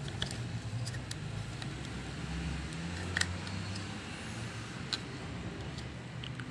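A few light clicks of the robot vacuum's small plastic wheel-module parts being handled, about three seconds in, near five seconds and again near the end, over a low steady rumble.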